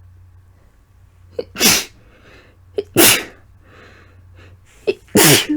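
A woman sneezing three times in a row, each a wet, explosive sneeze led by a quick sharp in-breath, about a second and a half apart. The sneezes come from a tickly, congested nose.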